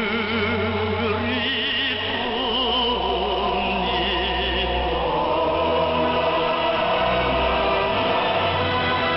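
Operatic-style singing with strong vibrato over orchestral accompaniment, heard through a shortwave radio receiver. The sound is narrow and band-limited, with no highs.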